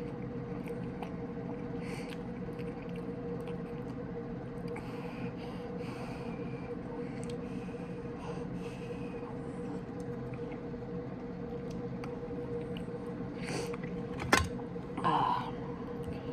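Quiet eating at a table over a steady low hum of room tone, with faint mouth and handling sounds. About fourteen seconds in, a sharp clink of metal cutlery, then a short louder sound just after.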